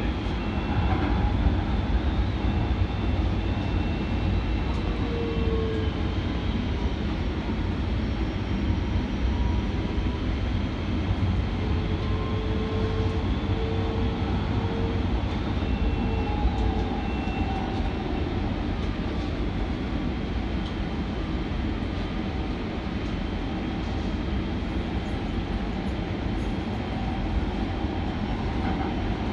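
Kinkisharyo P3010 light rail vehicle running between stations, heard from inside the car: a steady rumble of wheels on rail, with faint whining tones that slide up and down in pitch.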